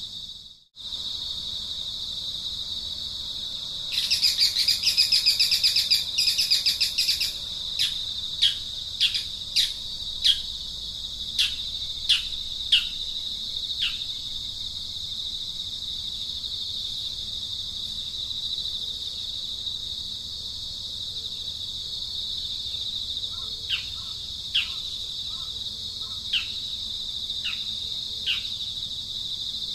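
Steady high-pitched insect drone, with a bird's loud buzzy trill about four seconds in, followed by a string of short, sharp downward-sweeping chirps, about one or two a second, which pause midway and return near the end.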